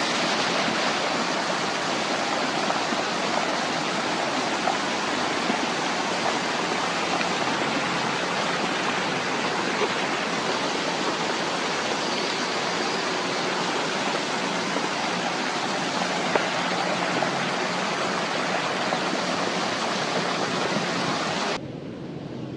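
Heavy rain falling in a steady, loud hiss, which drops abruptly to a quieter hiss near the end.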